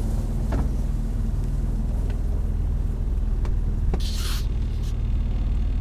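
Boat's outboard motor running steadily, pushing the inflatable boat along. A few light ticks, and a short hiss about four seconds in.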